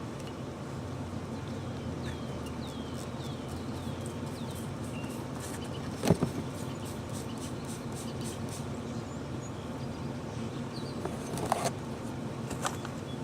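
Steady low buzzing of a honey bee swarm being dumped into a hive, with a few bird chirps early on. A single sharp knock about six seconds in and a couple of lighter clicks near the end.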